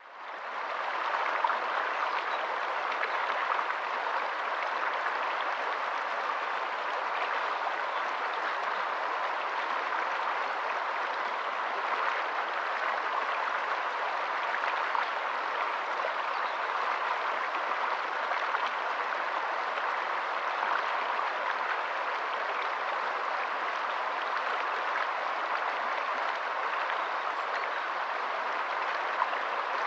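Steady water noise, a dense even patter and rush with many fine droplet ticks, fading in over the first second and then holding level.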